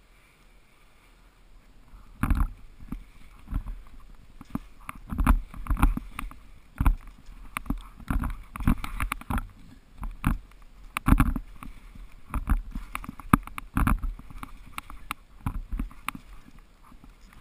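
Skis scraping and swishing over firm snow through a run of turns: an irregular series of loud rushes and thumps, starting about two seconds in after a quiet start.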